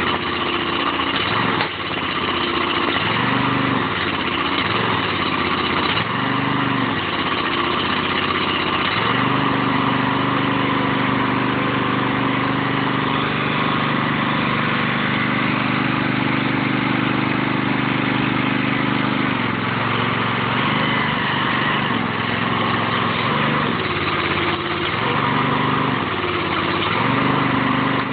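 Small engine of a homemade log splitter running steadily. For about ten seconds in the middle its note becomes steadier and stronger.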